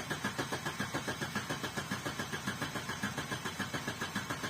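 Opel Corsa Z14XEP 1.4-litre four-cylinder petrol engine being cranked by the starter motor, turning over in a steady, even rhythm without catching: a crank-but-no-start that the owner puts down to fuel not reaching the engine.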